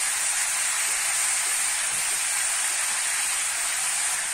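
Pork and sliced red onion frying in a blackened wok: a steady sizzling hiss.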